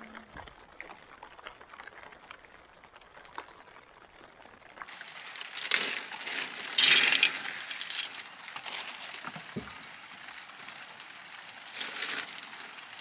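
Plastic bag crinkling and dry dog kibble rattling into a plastic bowl, loudest a few seconds after the start of the second half, with another short rustle near the end. Before that, only faint outdoor ambience.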